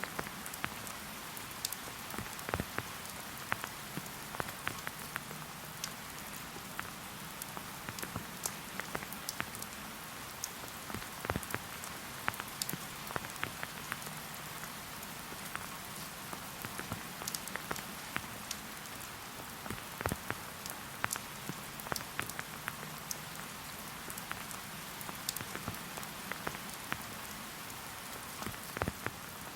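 Steady rain falling in a forest: an even hiss with many separate drops landing close by in an irregular patter.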